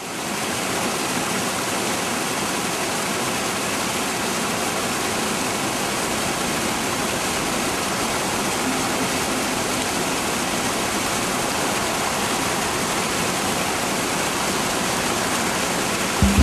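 Waterfall rushing as a steady, even wash of water noise, fading in at the start.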